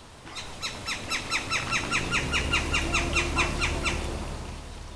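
A bird calling a rapid series of about twenty short notes, each falling in pitch, about five or six a second, swelling and then fading out after about four seconds.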